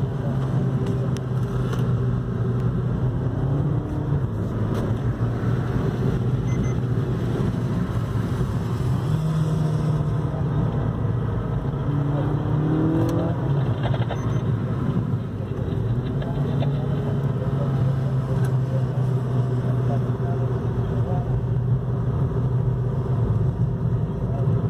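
Suzuki Swift Sport's 1.4-litre Boosterjet turbo four-cylinder engine heard from inside the cabin while driven on track, over steady road and tyre noise. The engine note holds a steady pitch for long stretches and shifts up a few times in the middle as speed changes.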